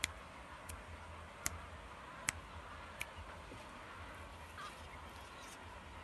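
Steady outdoor background noise with a low rumble, broken by five sharp, separate clicks spaced roughly three-quarters of a second apart in the first three seconds.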